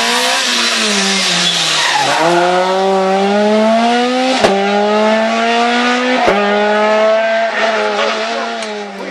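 Rally car engine at full throttle. The note falls as it slows into a bend, then climbs through the gears, with a sharp crack at each upshift about 2, 4½ and 6 seconds in. It fades near the end as the car pulls away.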